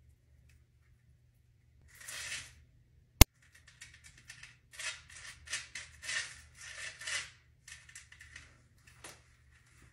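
Crisp crackling and rustling of stiff, product-set hair being pressed and worked by fingers, in a run of short bursts. The hair is set so hard that it won't move. A single sharp click comes about three seconds in.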